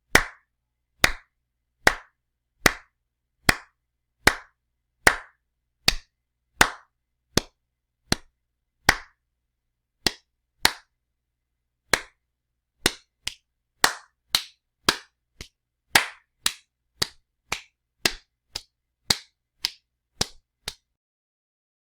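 A series of sharp, single slaps with silence between them, about one a second at first, then quicker, about two a second, before they stop shortly before the end.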